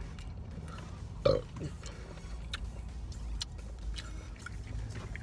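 A short burp about a second in, falling in pitch, after drinking Pepsi. Faint scattered clicks follow.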